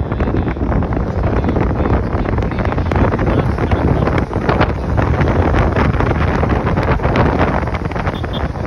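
Heavy wind buffeting the microphone of a phone filming from a car moving at speed, with steady road and traffic rumble underneath.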